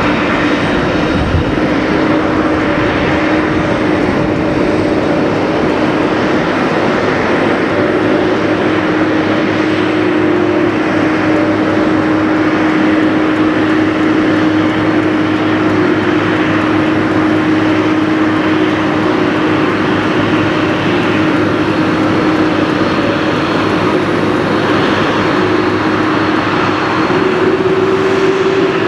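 A Boeing 747-400's jet engines running loud and steady, with a droning tone that steps up in pitch near the end.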